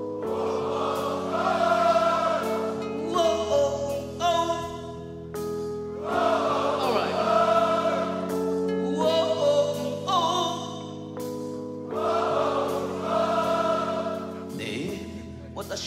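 Live band performance with singing: sustained held chords under sung phrases that come in three waves, each a few seconds long.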